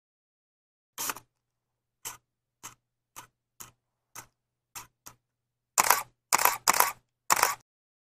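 Camera shutter clicks, each one separate with dead silence between: a click about a second in, a run of seven lighter, shorter clicks, then four louder, longer double-clack shutter releases near the end.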